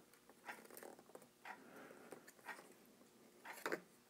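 Near silence with a few faint, light clicks and taps from a soldering iron and small tools being handled around the wiring, the loudest a little before the end.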